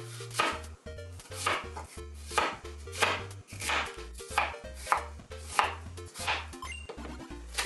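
Kitchen knife cutting through a raw onion on a bamboo cutting board: about a dozen even chopping strokes, each ending in a knock of the blade on the board.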